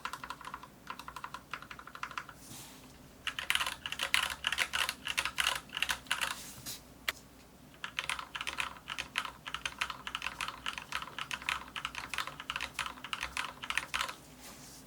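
Typing on an Anne Pro 2 mechanical keyboard with Cherry MX Brown switches, in three runs of rapid keystrokes with short pauses between. The middle run is the switches stock and unlubed, and the last run is the switches lubed with Krytox 205g0.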